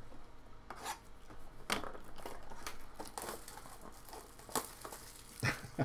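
Trading-card packaging being handled: crinkling and rustling of plastic wrap and cardboard, mostly in the middle, with a few short light knocks of boxes being moved.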